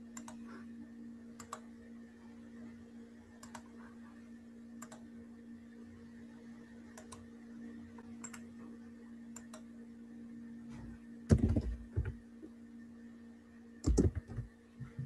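Scattered single clicks at a computer, one every second or two, then a cluster of louder thumps about eleven seconds in and again near the end, over a steady low hum.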